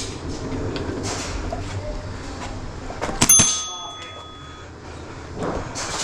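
A single sharp metallic strike a little over three seconds in, ringing on for about a second and a half, over a low background rumble.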